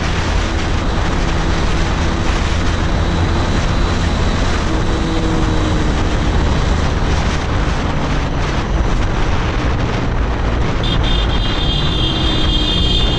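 Motorcycle fitted with an aftermarket exhaust, running steadily at cruising speed, heard from the rider's camera under heavy wind and road noise.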